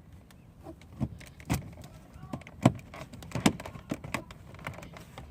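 Wood-grain trim cover being pressed onto a 2008 BMW 328i's driver door panel: a series of sharp clicks and knocks as it snaps into place. The loudest knocks come about halfway through.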